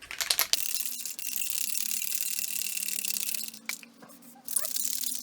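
Aerosol spray paint can spraying: a steady hiss for about three seconds, then two shorter bursts near the end, with a few quick clicks at the very start.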